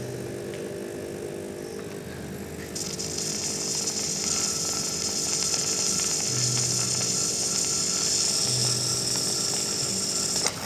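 Getra SN-3035S espresso machine's pump running steadily during a rinse cycle, with water hissing through it from about three seconds in; it cuts off with a click near the end.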